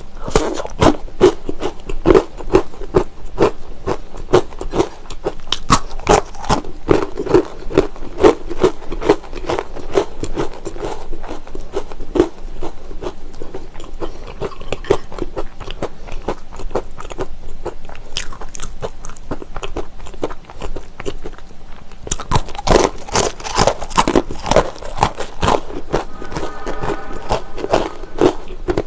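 Close-miked crunching and chewing of Utz honey wheat braided twist pretzels: a steady run of crisp bites and chews, with a louder, denser spell of crunching about three-quarters of the way through.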